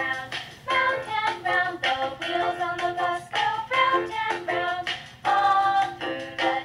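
A song with singing, played back from an MP3 file by a DFPlayer Mini module through the activity box's small built-in speaker after a button press.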